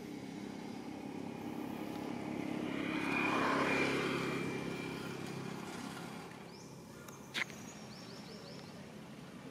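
A motor vehicle passing by, its noise swelling to a peak and fading away over a few seconds, followed by a single sharp click.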